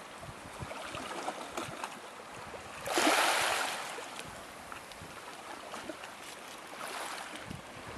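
Small waves lapping and trickling at the edge of a calm sea, with one louder wash of a wave about three seconds in.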